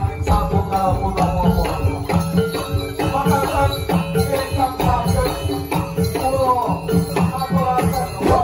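Live jaranan ensemble music: a wavering melody line over dense drumming and rattling percussion.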